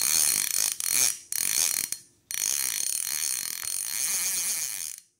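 Rapid mechanical ratcheting sound, in three short bursts over the first two seconds, then after a brief pause one longer run of nearly three seconds that cuts off near the end.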